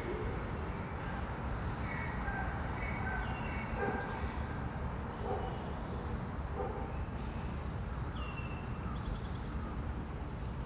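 Outdoor ambience: scattered short bird chirps and a steady high insect drone over a constant low rumble.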